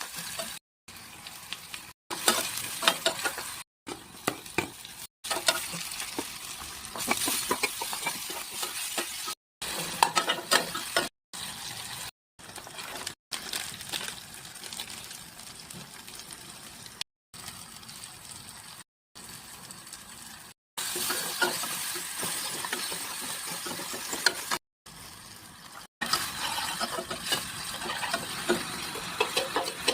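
Food sizzling as it fries in a pan, stirred with a spatula that clicks and scrapes against the pan. The sound comes in short stretches broken by sudden brief silences.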